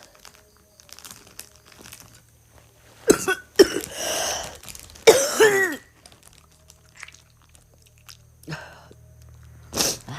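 A young woman coughing: a fit of several harsh coughs starting about three seconds in and lasting about three seconds, then two single coughs near the end.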